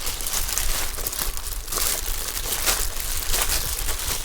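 Packaging crinkling and rustling as it is handled and pulled open, in quick irregular crackles.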